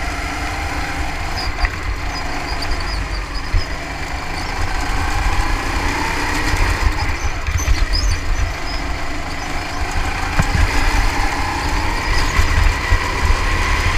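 Go-kart engine running at speed, heard from the driver's seat, its pitch falling and rising again as the kart slows for corners and accelerates out of them, over a heavy low rumble.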